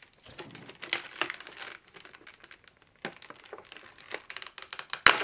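Plastic packaging crinkling and rustling in the hands as a boxed figurine is taken out, in irregular crackles, with one sharp click near the end.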